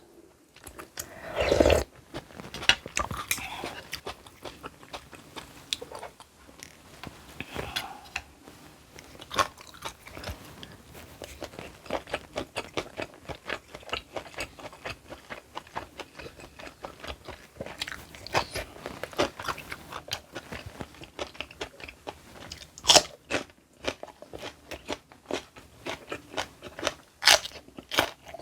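A person chewing crisp, crunchy food close to the microphone: a steady run of crackly crunches, with a louder bite about a second and a half in and two more near the end.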